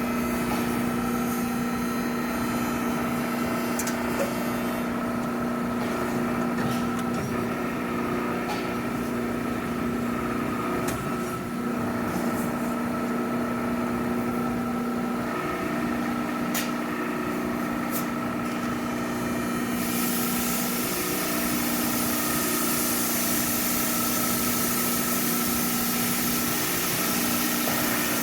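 Machine tool running with a steady hum and a few faint clicks; about twenty seconds in a high hiss joins it and stops just before the end.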